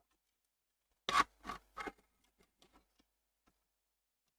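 Handling noise on a workbench: three sharp clicks or knocks about a second in, the first the loudest, then a few faint ticks.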